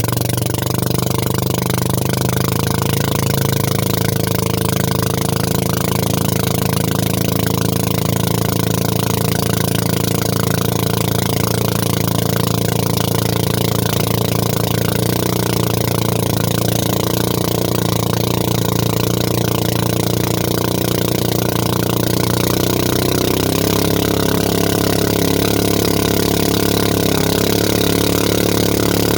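Boat motor running steadily, its pitch stepping up a little about two-thirds of the way through.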